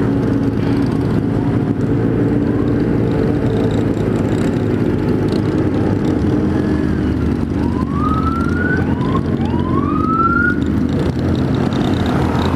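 Motorcycle engines running steadily at slow parade pace, heard from the seat of a Kawasaki Z1000 riding in a large group. About two-thirds of the way through, a siren whoops three times in short rising glides.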